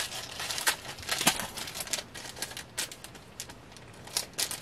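Jewellery packaging crinkling as packaged earrings are handled: a scatter of small crackles and clicks, thinning out about three seconds in.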